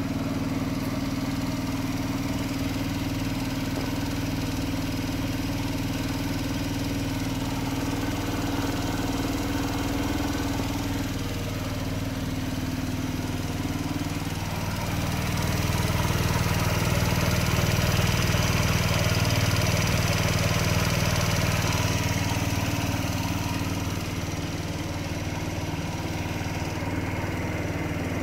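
Honda Dio AF56 scooter's 50 cc four-stroke, water-cooled single idling steadily, louder from about halfway through.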